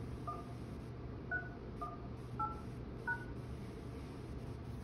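DTMF touch-tones from a Lifesize Icon conferencing system's keypad, five short two-pitch beeps about half a second to a second apart, as the numeric Zoom meeting password and closing pound sign are keyed in. A low steady hum runs underneath.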